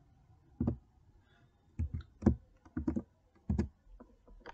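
Typing on a computer keyboard: about eight separate keystrokes, irregularly spaced.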